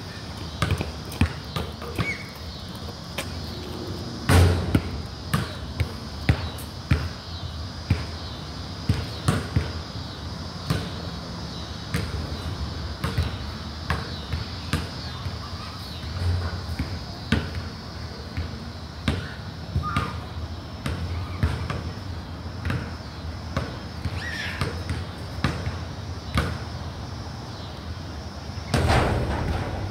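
Basketball dribbled on a hard outdoor court: a run of short, sharp bounces at a fairly even pace, with a louder bang about four seconds in and a longer, louder clatter near the end.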